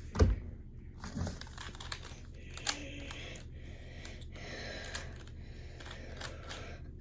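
A thump just after the start, then light, irregular plastic clicks and rustling as a Pyraminx puzzle is handled during inspection.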